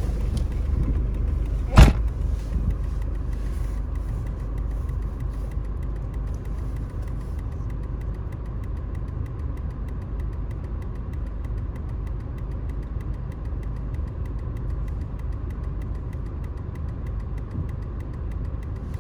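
1999 Volvo S40 1.8-litre four-cylinder petrol engine idling steadily on a cold morning, a car that the owner says barely started and runs badly since parts were taken off it. A single sharp knock stands out about two seconds in.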